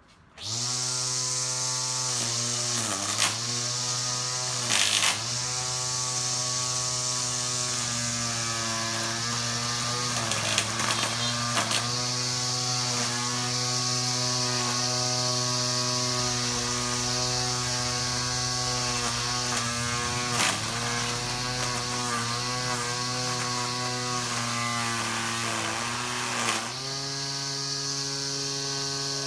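Ryobi OLT1832 18V cordless string trimmer's electric motor starting about half a second in and running steadily with a pitched whine. Its speed sags briefly several times, with a few sharp knocks.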